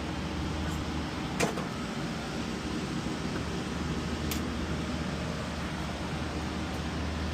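Steady low mechanical hum of running HVAC equipment, with a sharp click about a second and a half in and a fainter tick about four seconds in.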